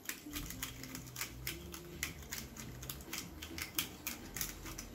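Hand-turned pepper mill grinding peppercorns, a quick run of dry clicks at about five a second.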